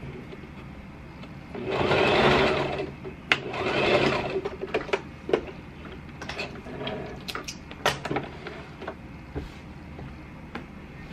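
Electric domestic sewing machine stitching in two short runs, each about a second long with a brief pause between, as the seam around a cloth face mask is finished. Then come a string of sharp clicks and rustles as the fabric is handled and pulled off the machine.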